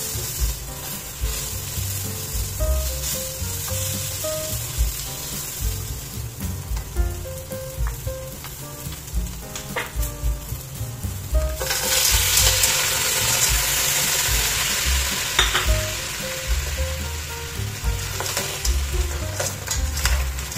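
Onion and tomato sizzling in a hot stainless steel pot, with a plastic spatula stirring and scraping. A little past halfway the sizzling suddenly gets louder as the mussels go into the pot, then eases off.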